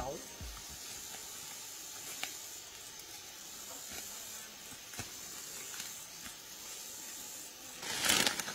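Faint steady hiss of outdoor background with a few light snaps. Near the end comes a loud burst of rustling, as of someone moving through dry bamboo leaves and undergrowth.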